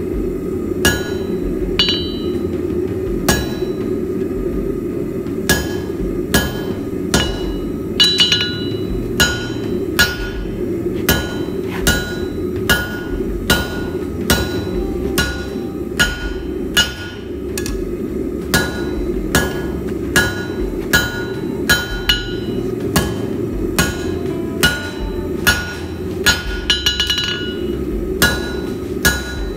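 Hand hammer striking hot steel flat stock on an anvil, working the end of the bar, with the anvil ringing after each blow. The blows come at about one to two a second with short pauses. A steady rushing noise runs underneath.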